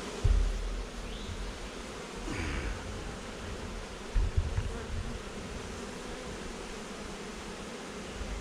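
Swarm of honey bees buzzing steadily as they move into a new hive box, with two low thumps, one about a third of a second in and a cluster about four seconds in.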